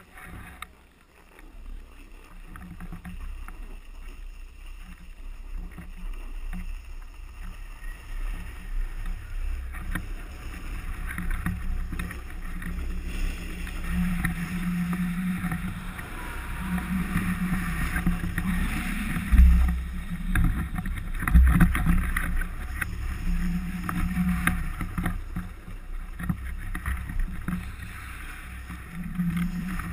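Snowboard sliding and scraping over packed snow, with wind buffeting the camera microphone. A couple of louder low bumps come about two-thirds of the way through.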